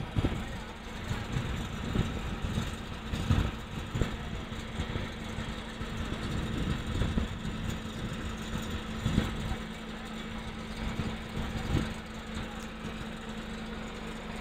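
An engine running steadily with a constant hum, with scattered low thumps and knocks.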